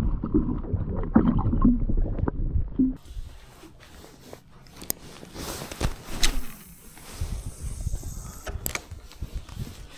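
Wind rumbling on the microphone aboard a small boat for the first few seconds, then, after an abrupt change, quieter water sounds with a few short splashes and clicks.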